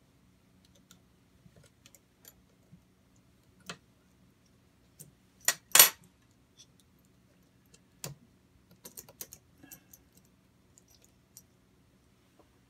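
Small metal parts of a model compressed-air engine clicking and clinking as they are handled and loosened by hand, in scattered light taps. A pair of sharp metal clinks about halfway through is the loudest, and a quick cluster of clicks follows a few seconds later.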